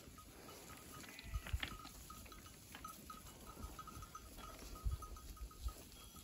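Faint sounds of a grazing sheep flock: small bells clink irregularly, with a few low thumps.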